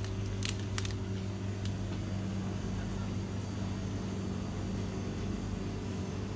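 Steady low mechanical hum of the shop's equipment, with two short plastic-packet clicks in the first second as a packet is handled.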